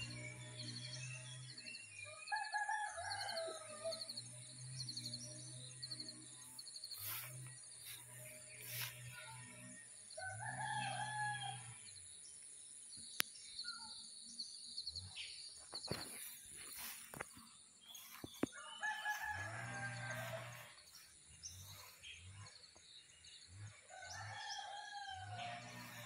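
A rooster crowing four times, several seconds apart, with small birds chirping and a steady high hiss in the background.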